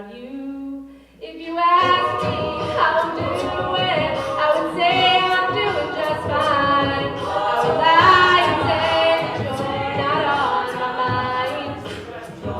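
A cappella group singing: one voice alone at first, then about two seconds in the whole group comes in with many voices in harmony over a steady beat of short sharp strokes.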